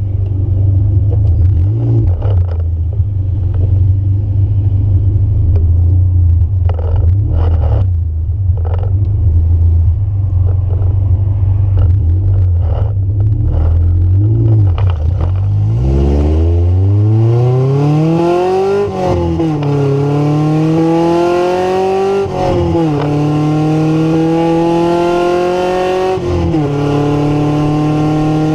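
Honda Civic EF sedan's four-cylinder engine heard from inside the car: a steady low idle rumble, then, a little past halfway, pulling away under acceleration. The engine note climbs and drops back three times as it shifts up through the gears.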